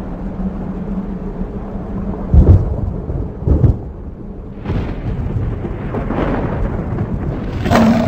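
Thunderstorm: two loud claps of thunder about two and a half and three and a half seconds in, followed by further rolling rumbles.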